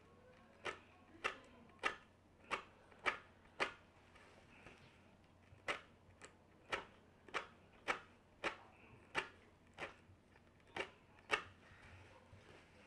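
Metal tweezers clicking sharply as hairs are plucked from a wig's lace frontal, a little under two clicks a second. A run of six clicks, a pause of about two seconds, then about ten more.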